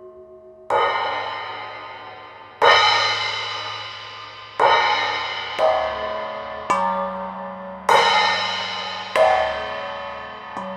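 Struck metal percussion in an improvised set: about eight irregular strikes one to two seconds apart, each a bright cymbal- or gong-like crash with many overtones that slowly rings away, over a low steady drone.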